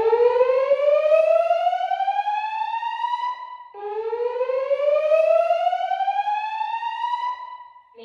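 Fire alarm speaker strobes sounding the slow whoop evacuation tone: two long rising sweeps, each about three and a half seconds, with a short break between them. This is the alert tone that a voice-evacuation system plays ahead of its spoken evacuation message.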